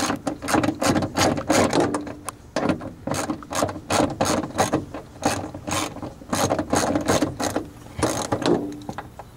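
Hand ratchet with a 10 mm socket clicking rapidly as it backs out the bolts holding a car's rear speaker, in several quick bouts of ratcheting with short pauses between them.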